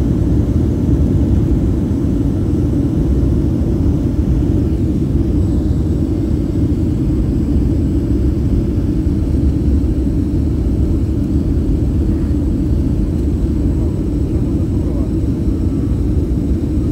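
Cabin sound of a jet airliner on its takeoff roll: a loud, steady low rumble from the turbofan engines at takeoff power and the wheels running on the runway.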